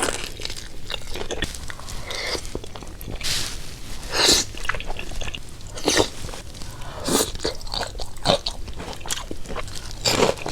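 Close-miked biting and chewing of crunchy food: irregular crunches and smacks spaced about every half second to a second, several louder bites among them.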